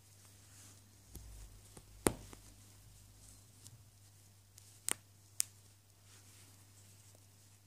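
Metal snap fasteners on the felt loops of a fabric quiet book being pressed shut and pulled open: a few sharp clicks, the loudest about two seconds in and two more about half a second apart around five seconds, with soft fabric handling between them.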